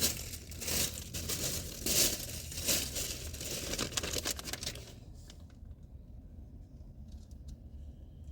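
Plastic candy bag crinkling and being torn open, in irregular rustling bursts that die down about five seconds in, leaving only a few faint clicks.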